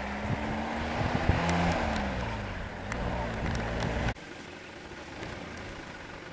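A motor vehicle's engine running slowly, its hum dipping in pitch, with a few knocks. About four seconds in it cuts off abruptly to a quieter steady hiss.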